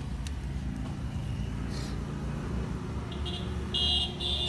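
Road traffic passing by with a steady low rumble. About three seconds in, a vehicle horn gives three short, high-pitched toots.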